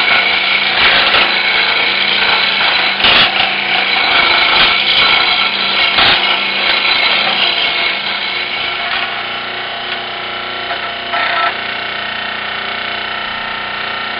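Power saw running steadily as it cuts jigsaw puzzle pieces out of plywood, with a fast buzzing chatter. It gets a little quieter about halfway through.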